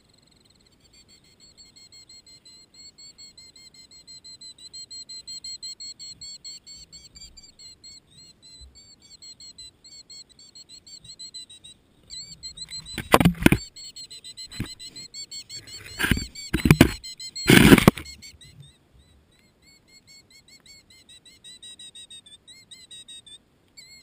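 Killdeer giving a long series of rapid, high, repeated alarm notes, the defence call of a bird guarding its nest from cattle. About halfway through come three loud bursts of rustling noise as a cow noses at the camera.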